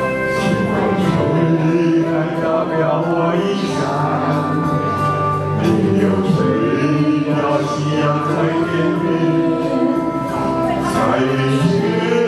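A man and a woman singing a duet into microphones over a karaoke backing track.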